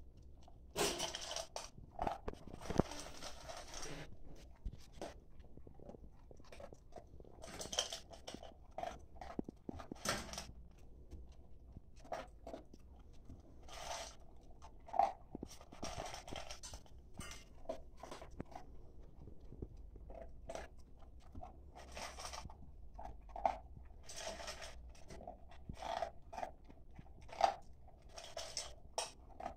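A Staffordshire bull terrier crunching and chewing dry dog kibble from a stainless steel bowl, in irregular bursts of crunches with short pauses between mouthfuls.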